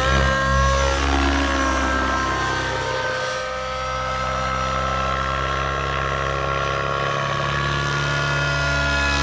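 Two-stroke nitro glow engine and rotor blades of an XLPower Specter 700 Nitro radio-controlled helicopter running hard in flight. The pitch bends as it passes close near the start, it grows a little quieter in the middle as it flies off, and it gets louder again toward the end as it comes back.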